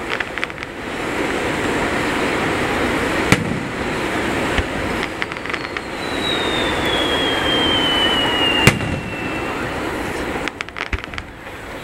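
Aerial fireworks shells bursting: two sharp booms about five seconds apart, with crackling near the start and near the end. A long whistle falls slowly in pitch in the seconds before the second boom.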